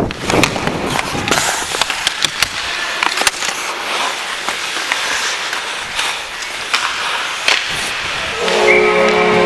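Ice hockey skates scraping and carving on the ice, with sharp clicks and knocks of sticks and puck, close to a helmet-mounted camera. About 8.5 s in, a steady multi-note horn chord starts and holds: an arena goal horn.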